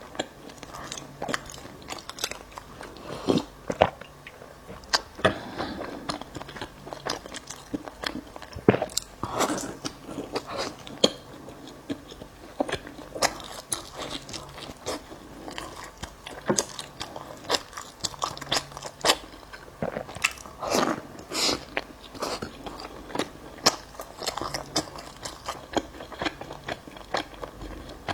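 Close-up chewing and biting into a bagel: irregular sharp clicks and mouth noises, several a second.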